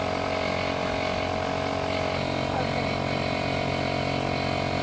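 A motor or small engine running at a steady speed: an even mechanical hum with many overtones and no change in pitch or level.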